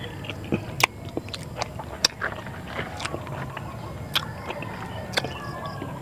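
Close-miked chewing with wet lip smacks as a person eats rice and milkfish by hand. There are sharp mouth clicks every second or so.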